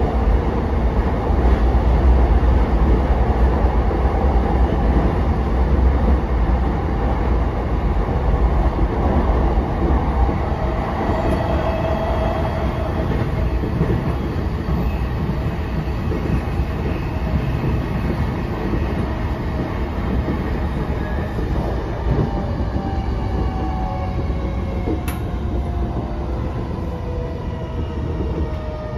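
Interior running sound of a JR East E233-5000 series electric train: steady wheel-on-rail rumble at speed, easing slowly in level. Over the later part, faint traction-motor tones glide downward as the train slows, and there is one sharp click near the end.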